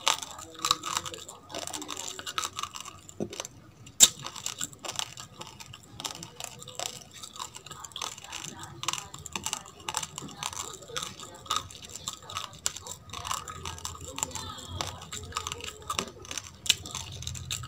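Chewing a mouthful of raw basmati rice: dense, irregular crunching of hard grains, with a sharper crack about four seconds in.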